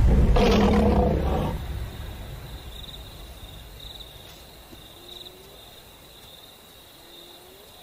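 A lion roars once, fading out within the first two seconds. It leaves a faint, steady high insect trill that swells about once a second.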